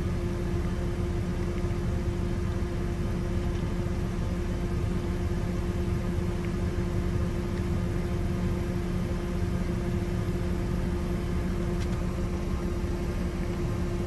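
Combine harvester with its corn header engaged, heard from inside the cab: a steady drone of engine and threshing machinery with a constant hum.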